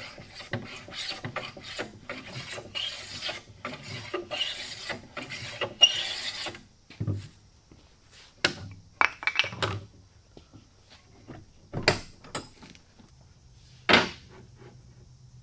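Small hand plane shaving the edge of a wooden frame in short repeated strokes, about two a second, for the first six seconds or so. Then scattered clicks and knocks of wood and tools, with a louder knock near the end.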